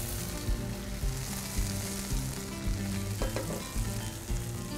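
Seafood searing in hot olive oil in a stainless steel sauté pan, a steady sizzle, with the pan being lifted and shaken over the burner.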